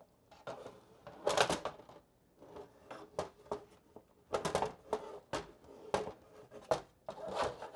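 Plastic side cover of a NordicTrack S22i exercise bike being handled and worked around the crank: a run of irregular clicks and knocks, with clusters about a second and a half in, in the middle, and near the end.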